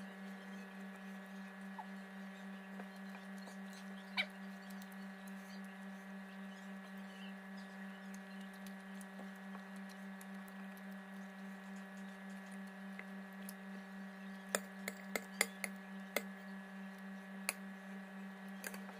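Faint steady hum with a low pitched tone and a stack of overtones, pulsing slightly. A few sharp clicks stand out over it, one about four seconds in and a quick cluster near the end, from eating by hand off a ceramic plate.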